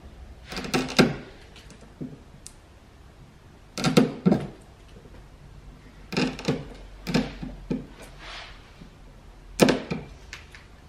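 Sharp wood chisel scraping and chipping old paint off varnished hardwood door trim, in four short bursts of scraping clicks a few seconds apart as the paint cracks and lifts away.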